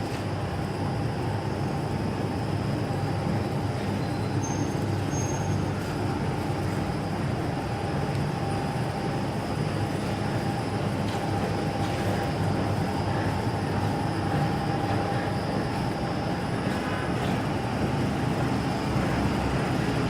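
Two-lane plastic bag cutting and sealing machine running steadily: a continuous mechanical din with a faint, steady high hum.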